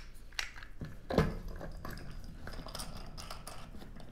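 Light clicks and taps of a plastic antenna quick mount being loosened and handled, with one louder knock about a second in.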